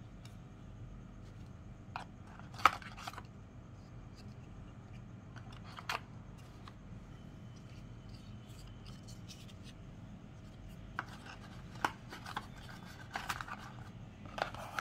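Hands handling a phone's black cardboard box and its plastic accessories: scattered sharp clicks and short rustles of cardboard and plastic. The loudest click comes between two and three seconds in.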